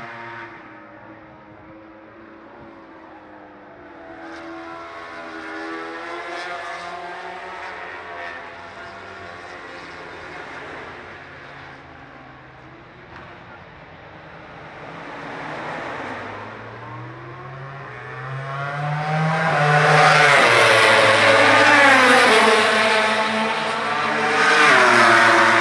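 MotoGP racing motorcycles at speed on the main straight, their engines faint and distant at first. One passes loudly about twenty seconds in, its engine note rising and falling, with another loud pass near the end.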